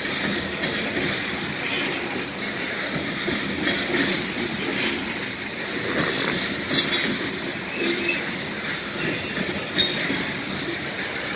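Loaded coal hopper cars rolling past on steel rails: a steady rumble and rattle of wheels on track, with brief high-pitched wheel squeals a couple of times in the second half.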